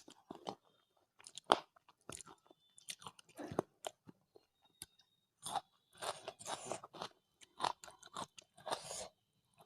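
Close-miked eating of rice and curry: chewing, with irregular wet mouth smacks and short sharp clicks, busiest near the end.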